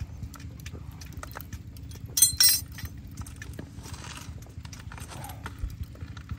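Clicks and clinks of a knife and utensils while food is prepared, with one sharp ringing metallic clink about two seconds in and a soft rustle around four seconds in, over a steady low rumble.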